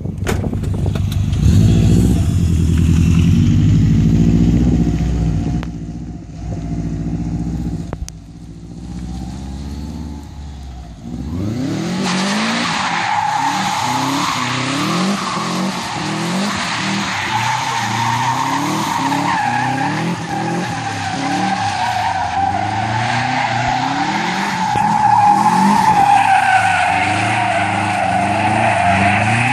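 A first-generation Subaru Impreza's flat-four engine revving up and down while its tyres squeal without a break as the car drifts in circles on asphalt. The squeal sets in about twelve seconds in, after a lower engine rumble.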